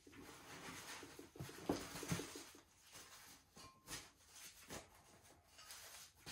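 Faint rustling and crinkling of plastic packaging wrap being pulled off by hand, with a few light knocks of the part against the case.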